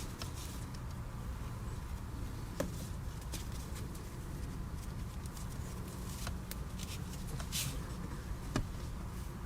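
Faint rustling and a few light clicks of rope being handled and tied into a knot, two sharper clicks about two and a half seconds in and near the end, over a low steady hum.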